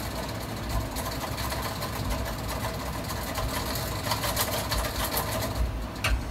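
Oktober can seamer spinning a beer can while its roller finishes the seam on the lid: a steady mechanical whirring rattle. It dies away near the end, followed by a single click.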